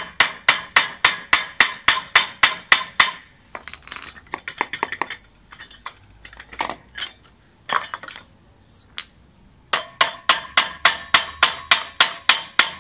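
Pliers tapping a self-locking push-on end cap onto the wheel axle of a kettle barbecue, metal striking metal with a ringing clink. Quick taps about four a second, then a few sparser, lighter knocks in the middle, then another fast run of taps from about ten seconds in.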